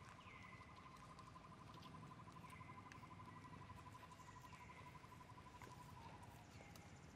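Faint outdoor ambience: a steady pulsing insect trill that fades out near the end, with a short call that slides downward repeated about every two seconds.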